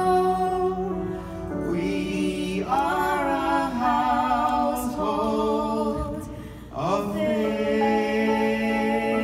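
A woman and a man singing a duet into microphones, holding long notes with vibrato, with a short break about six seconds in before a final long held note.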